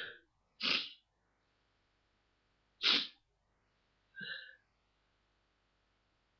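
Three short, breathy sounds from a person in a sneezing fit, about two seconds apart, the last one the faintest.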